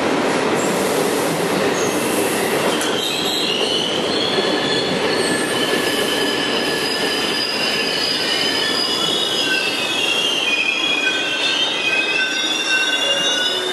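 Trenitalia passenger train of double-deck coaches rolling along a station platform: a steady rumble of wheels on rail. High, wavering wheel squeal sets in about three seconds in and goes on to near the end.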